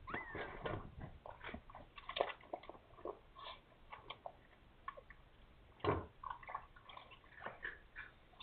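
Irregular soft rustling and wet clicking sounds as soiled bedding in a cat carrier is cleaned up, with a brief faint falling squeak near the start.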